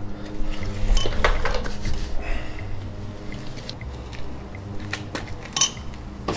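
Light metallic clinks and clicks from handling a new piston, its wrist pin and small tools on a motorcycle engine's connecting rod. A few taps come about a second in, and one sharper click comes near the end.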